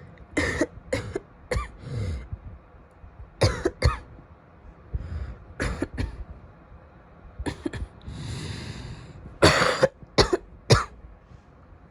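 A woman coughing repeatedly in short fits of two to four coughs, with a long drawn breath between fits; the loudest fit comes near the end.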